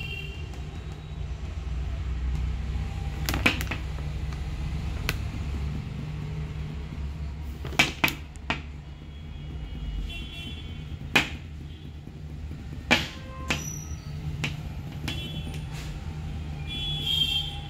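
Steady low rumble of background noise, with scattered sharp clicks and knocks.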